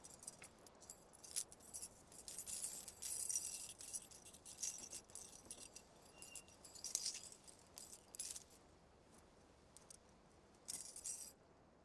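Fabric rustling as tops are pulled off over the head, with light jingling of bangles and earrings, in short irregular bursts that stop abruptly near the end.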